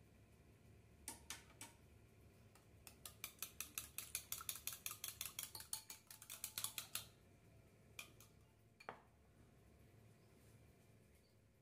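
Wire whisk beating the wet batter ingredients (egg, oil, milk, buttermilk and vanilla) in a ceramic bowl, its wires clicking rapidly against the bowl for about four seconds, after a couple of clicks near the start and followed by two single taps.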